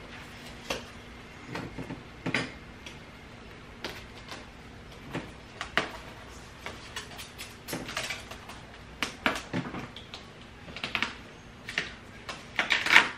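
Irregular rustling, crinkling and light tapping as a self-adhesive closed-cell foam liner sheet is handled and pressed by hand onto the underside of a car's trunk lid, with a louder flurry near the end.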